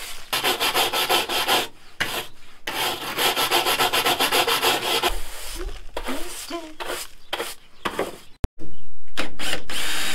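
Stiff bristle hand brush scrubbing the dusty corrugated steel floor of a Ford Transit's load area. The strokes come fast and back-and-forth in two long spells, then a few scattered scrapes follow. Near the end a sharp click gives way to a louder, steady background with a few knocks.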